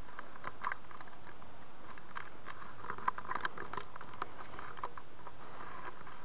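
Faint scattered ticks and scratchy rubbing of fingers handling a GoPro camera and its mount.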